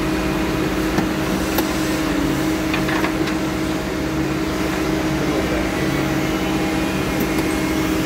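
Log loader's diesel engine running at a steady speed, a constant hum with a strong steady tone, with a few light knocks about one, one and a half and three seconds in.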